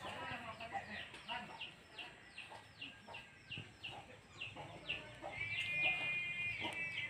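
Chicks peeping over and over: short falling chirps, about two or three a second, with a steadier held note joining about five seconds in.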